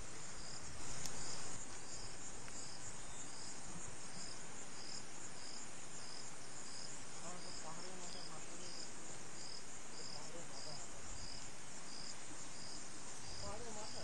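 Insects chirping in an even, high-pitched pulse about one and a half times a second, over the steady rush of river rapids.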